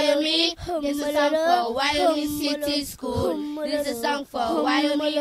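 Voices singing a song, with long held notes and a wavering pitch.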